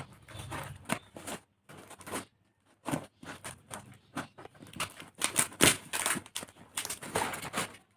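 A parcel being opened by hand: its packaging tearing, rustling and crinkling in irregular bursts, with a short pause about two and a half seconds in.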